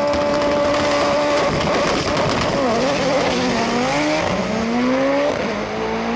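Manual-transmission drag cars launching off the line and accelerating down the strip. The engine note holds steady for about a second and a half, then dips and climbs again through upshifts, about three and five seconds in.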